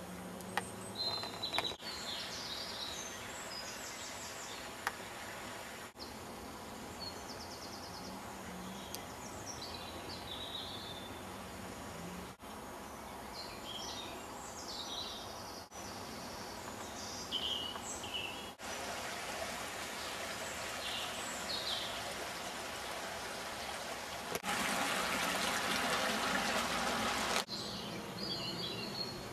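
Small birds singing and calling in short phrases over a steady outdoor hiss. Near the end a louder, even rush of running water comes in for about three seconds.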